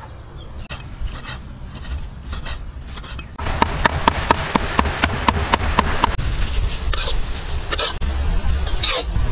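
Light knife ticks on a wooden cutting board. About a third of the way in, a louder run of sharp, evenly spaced chopping strokes begins, about four a second. After that comes a spatula stirring and scraping minced pork, shrimp and shredded carrot in a wok.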